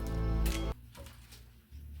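Instrumental background music with strong bass that cuts off abruptly under a second in, leaving only a faint low hum.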